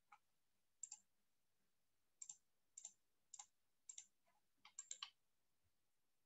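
Faint computer mouse clicks: about seven separate clicks spread over several seconds, each a quick double tick of press and release, with a quicker run of three or four clicks about five seconds in.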